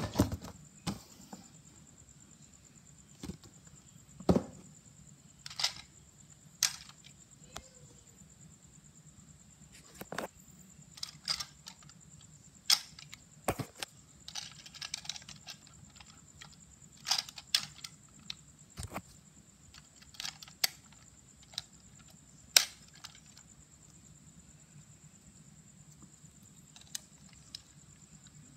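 Irregular clicks and knocks of a plastic toy robot and its cardboard box being handled, with a brief rustle about fourteen seconds in. A faint, steady high-pitched whine runs underneath.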